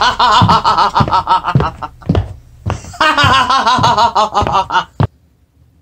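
A man's voice giving a cartoon villain's laugh in two bouts with a short break between, cutting off suddenly about five seconds in.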